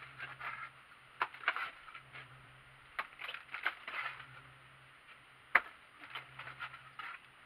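Steel trowel scraping and slapping wet mortar onto the top of a window reveal from a mortar board: a run of short scrapes and taps, with one sharp knock about five and a half seconds in.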